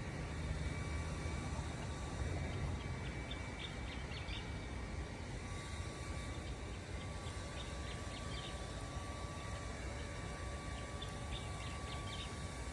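Outdoor night ambience: a steady low rumble that eases after the first few seconds, a faint steady whine, and scattered clusters of faint high chirps.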